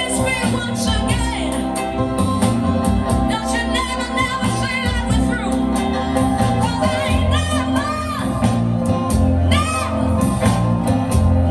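Music with singing: a voice sings over steady bass notes and a beat.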